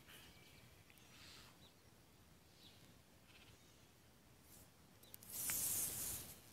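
Nylon paracord rustling faintly as it is worked through a Turk's head knot, with a louder swish a little after five seconds in as a length of cord is pulled through the knot.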